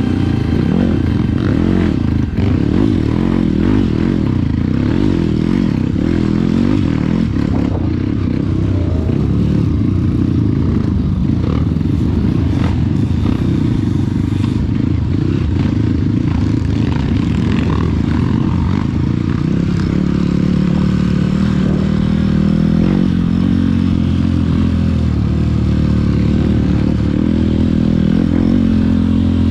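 Off-road trail motorcycle engine revving unevenly, its pitch rising and falling as it works. From about two-thirds of the way through it settles into a steadier note.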